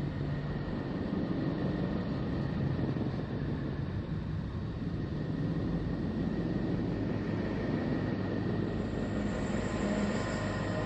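Steady low rumbling space-sound drone with faint steady whistling tones above it, a sonification presented as Voyager's recording of Neptune. A thin high hiss rises briefly near the end.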